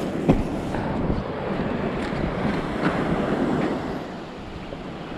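Wind buffeting the microphone over surf washing onto the beach, with a sharp knock about a third of a second in. The wind and surf ease a little near the end.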